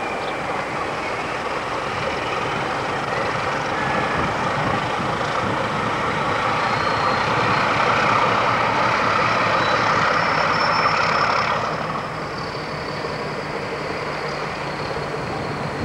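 Diesel train engine running, growing louder and then easing off suddenly about twelve seconds in, with a faint high whine in the second half.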